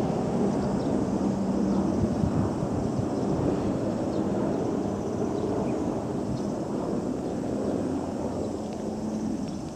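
Steady low rumble of road traffic, with a faint hum, easing off slightly toward the end.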